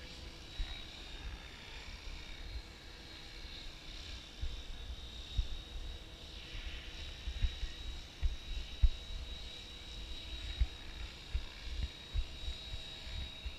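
Distant electric RC helicopter, an Align T-Rex 700 Pro DFC, in flight: a steady high whine from its motor and rotor head that swells and fades as it moves about. Gusts of wind buffet the microphone in short low thumps, which are the loudest sounds.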